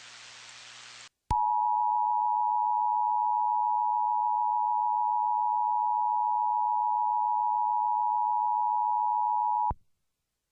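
Emergency Alert System attention signal: a loud, steady two-tone alarm that sounds for about eight seconds and cuts off sharply. Before it, about a second of faint static hiss.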